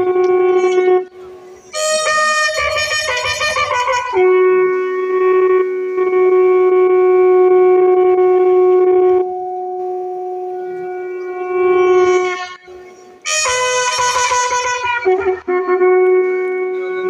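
Long ceremonial calls held on one steady note for several seconds at a time, twice broken by a louder, wavering burst of several voices or notes.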